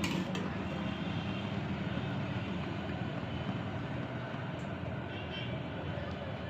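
Steady, even cooking noise from a pan on the stove as semolina and cashews roast in ghee over a medium flame.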